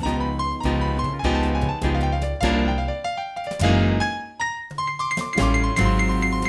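Background music led by piano, with a melody over bass notes, a brief dip about three and a half seconds in, then a repeating high figure.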